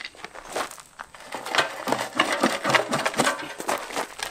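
Automatic transmission being dragged and worked off the back of a seized V8, its torque converter pulled out of the pump and left on the flex plate: a dense, irregular run of metal knocks and gravel crunching and scraping.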